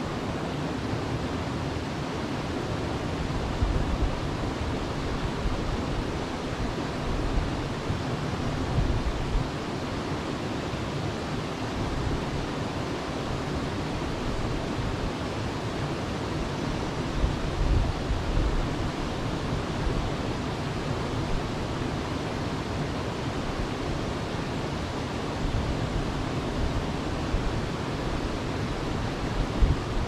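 Steady rushing of a rocky creek as water runs over boulders, with a few low wind buffets on the microphone.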